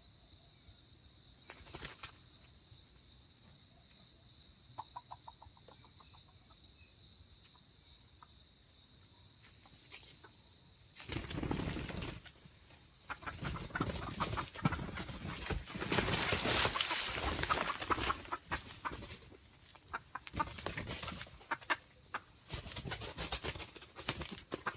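Red junglefowl flapping its wings hard and thrashing, struggling in a trap, in loud noisy stretches starting about 11 seconds in. Before that there is only a steady high insect tone.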